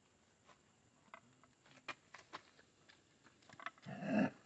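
Scattered light clicks and taps from handling the motorcycle headlight's wiring connectors and pins, then a brief louder scraping noise near the end.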